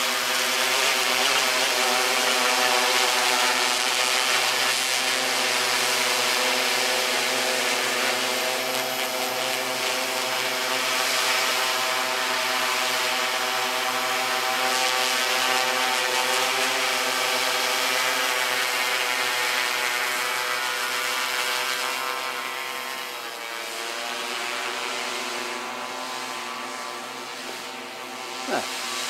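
Quadcopter's electric motors and propellers in flight, a steady multi-tone whine whose pitch shifts up and down as the craft is steered, easing off briefly toward the end. A short sharp click sounds near the very end.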